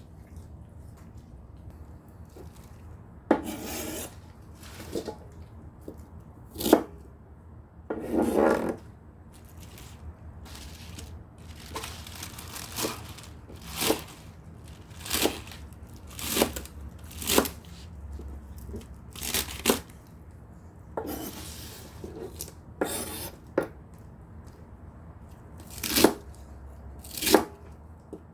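A Shih Tzu chewing raw napa cabbage, a string of crisp crunching bites that come every second or so through the second half.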